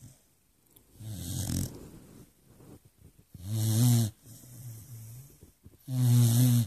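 Beagle snoring: a breathy snore about a second in, then two louder, low-pitched snores roughly two and a half seconds apart.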